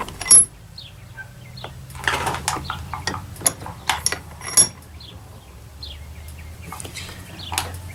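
Several sharp metallic knocks and clinks as a small iron piece is handled and set in place, two of them ringing briefly.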